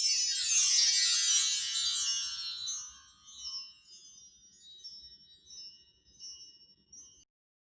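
Handmade brass-tube mark tree swept once, a quick run of bright chiming tones falling from high to low pitch, then individual tubes ringing on and fading before the sound cuts off near the end.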